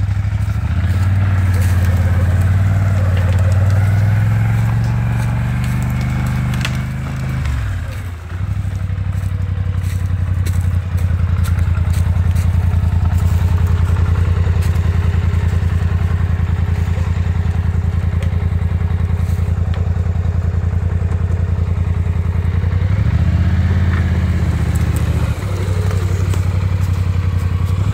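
ATV engine running close by: its pitch rises and falls with the throttle for the first eight seconds or so, then holds steady with an even pulsing beat. It revs briefly again a few seconds before the end.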